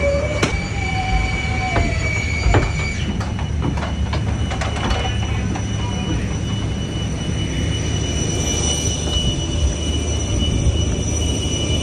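Steady ground noise of a parked Boeing 747 with its APU and air-conditioning packs running: a low rumble under several high steady whines. A few sharp knocks in the first three seconds.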